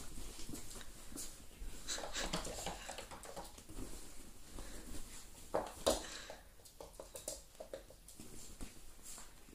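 Italian greyhound puppy digging and scrabbling in her padded fabric dog bed in play: paws scratching and rustling the cushion, with a louder scuffle about six seconds in.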